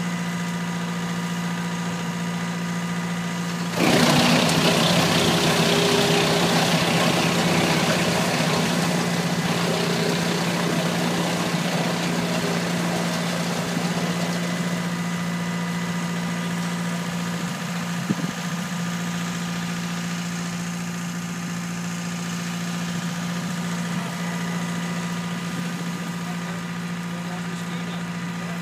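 Tractor-driven NHS model 180 wood chipper running with a steady hum. About four seconds in, a leafy branch is fed in and a loud chipping noise starts suddenly, then fades slowly as the branch is chewed up and blown out as chips.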